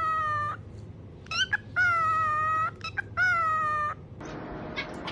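Parrot giving three long, steady, whine-like calls, each held at one pitch for under a second, with short rising chirps in the gaps between them.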